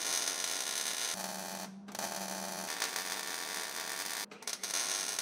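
Electric arc welding on a steel plate: the arc crackles and hisses steadily. It stops briefly just before the two-second mark and twice just past four seconds, as the welder pauses between beads.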